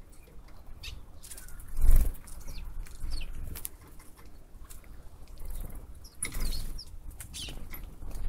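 Small birds chirping with short, quick calls several times over a steady low rumble of wind on the microphone, which swells into a loud gust about two seconds in.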